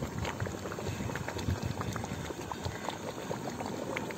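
Chicken biryani rice and water boiling hard in a large aluminium pot, a dense steady bubbling and popping, as a flat ladle stirs through it. The water has not yet cooked off, the stage just before the pot is sealed for dum.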